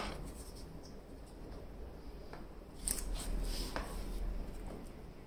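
Unboxing handling noise: a sharp tap right at the start, then foam and cardboard rubbing and scraping as the foam top layer is lifted out of the box and the espresso maker is grasped, loudest about three seconds in.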